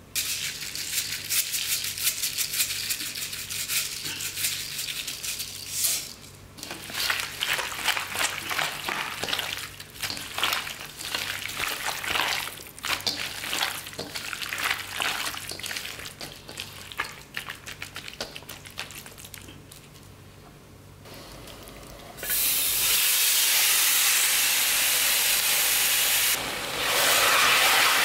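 A gloved hand mixing seasoned duck bulgogi meat with onion and green onion in a stainless steel bowl: wet squishing and rustling, with a short pause about six seconds in. About 22 seconds in, the meat goes into a hot wok and sizzles steadily, louder a few seconds later as it is stirred.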